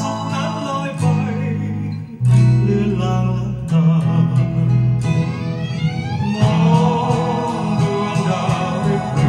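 Music playing from a vinyl record on a turntable with a Denon DL-103R moving-coil cartridge: an instrumental passage of a Thai song with no lead vocal, with a rising pitch slide about midway through.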